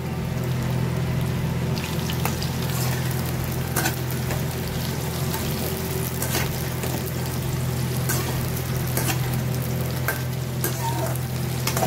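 Sliced kakoda (spiny gourd) sizzling as it shallow-fries in hot oil in a steel kadhai, with a slotted spatula scraping and knocking against the pan every second or two as the pieces are stirred. A steady low hum runs underneath.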